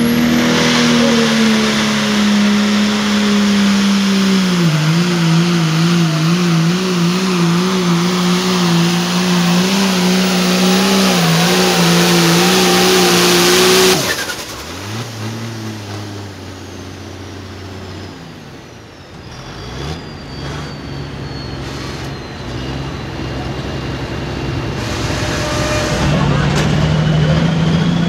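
Hot farm pulling tractor's diesel engine running flat out under load, its pitch wavering, then cut back sharply about halfway through to a low idle, with a high whistle falling away as it winds down. Near the end an engine rises in pitch and level again.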